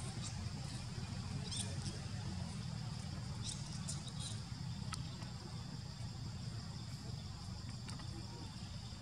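Steady low outdoor rumble, with a few faint, short high chirps or ticks scattered through it.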